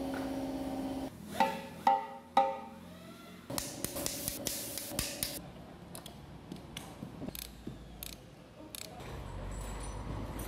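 Metal engine parts knocking together during a diesel engine rebuild: three ringing clanks about two seconds in, then a run of light irregular clicks and taps from hand tools, over a steady hum.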